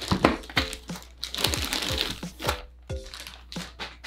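Clear plastic bag crinkling and rustling as a plastic helmet is unwrapped and pulled out of it, in irregular crackly bursts.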